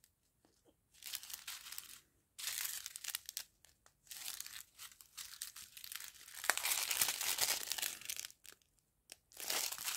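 Small clear plastic zip bags of round diamond-painting drills crinkling as they are handled and sorted by hand, in irregular bursts with short pauses.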